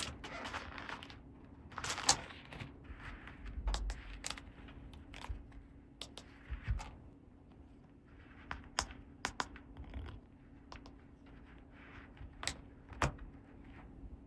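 Small plastic toy pieces being handled: scattered sharp clicks and taps with a few short rustles of packaging, over a faint steady hum.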